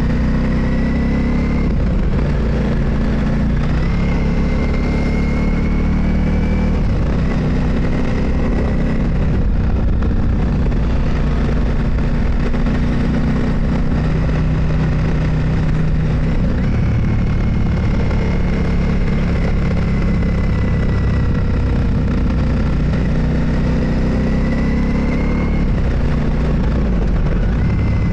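Motorcycle engine running under way, its pitch climbing and then dropping back several times, as when it is accelerated through the gears.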